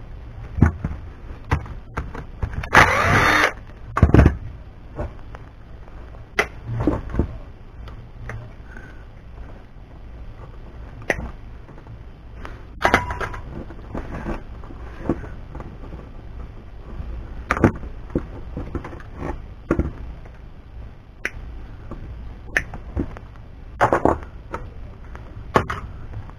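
Irregular clicks, knocks and clatter of hand tools and scrap parts being handled during dismantling, with a short scraping rasp about three seconds in and a heavier thump just after it.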